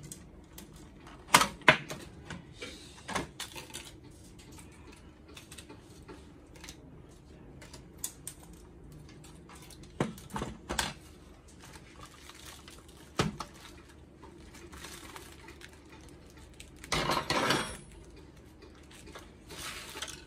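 Hard plastic parts of a Zebra card printer clicking and knocking as the printer is taken apart by hand, with the sharpest clacks about a second and a half in. Near the end, a short burst of crinkling plastic wrap.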